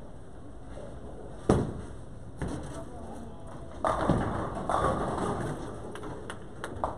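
Bowling ball released onto the lane with a sharp thud about a second and a half in, then rolling down the lane; about two and a half seconds later the pins crash and clatter for a second or so.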